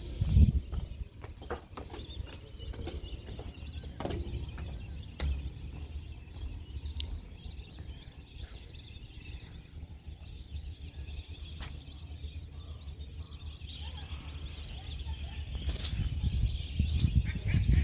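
A flock of wintering migratory birds calling in a continuous chatter, louder near the end, over a low rumble.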